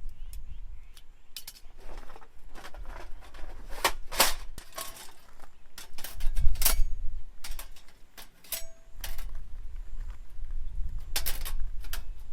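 Irregular sharp clicks and knocks, a few louder clacks among them, over a low rumble.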